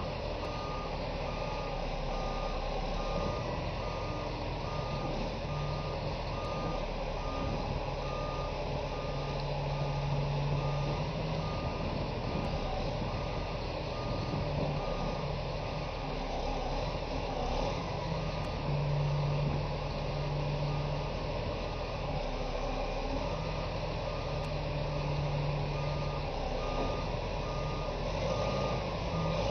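Reversing alarm on heavy equipment beeping steadily in an even repeating pattern, over a diesel engine running whose pitch rises and falls now and then as it is worked.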